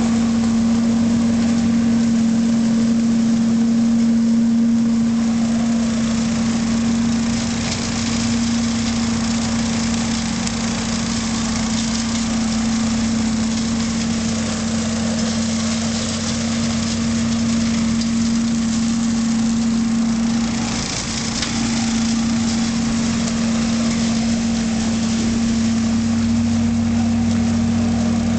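A John Deere riding lawn tractor and its tow-behind Cyclone Rake leaf vacuum running together while vacuuming up leaves. It makes a steady engine hum under a rushing hiss, with a brief dip about two-thirds of the way through.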